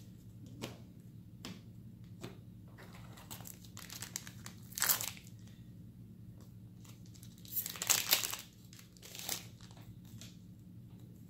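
Foil wrapper of a Weiss Schwarz booster pack crinkling and tearing as it is opened, in a few short bursts: one near the middle and a longer cluster after it, with light clicks of cards being handled in between.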